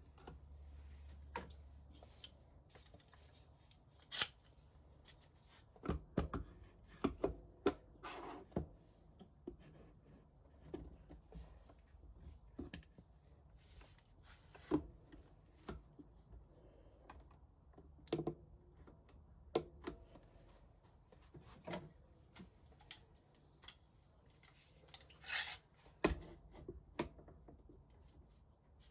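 Irregular light clicks and knocks of woodworking clamps being set and tightened on a glued wooden box, with a brief rubbing scrape about eight seconds in and again near the end.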